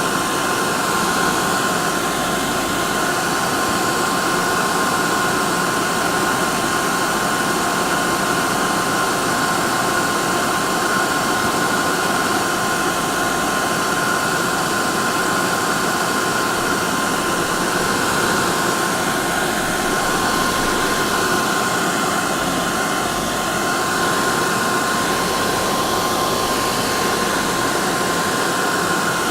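Hair dryer blowing steadily: an even rushing hiss with a constant whine from its motor and fan.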